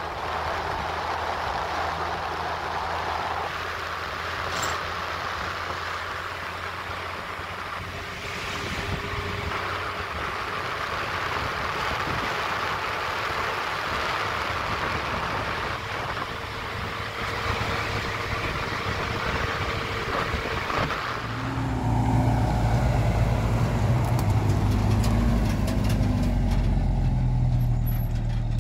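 A motor vehicle running, with a steady rush of road and wind noise. About 21 seconds in, a louder, deeper engine sound takes over and holds steady.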